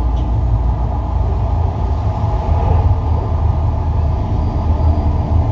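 The volcano show's soundtrack over loudspeakers: a deep, steady rumble with a held low drone.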